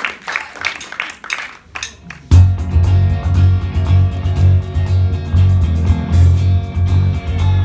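A short stretch of voices and stray sounds, then about two seconds in a youth rock band comes in loud with guitar and a heavy bass line and plays on.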